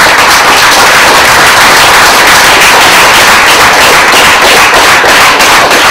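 Audience applauding loudly, many hand claps blending into a continuous clatter.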